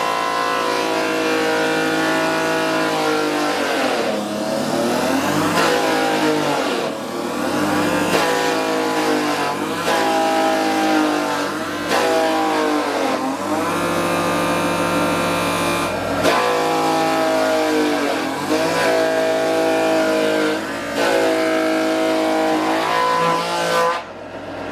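A motor running with a steady pitched whine that dips and recovers every couple of seconds, as its speed changes. It drops away shortly before the end.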